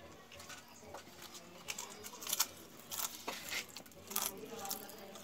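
Mouth-close crunching of slate pencil eaten with potato chips: a run of sharp, irregular crunches that starts about a second in.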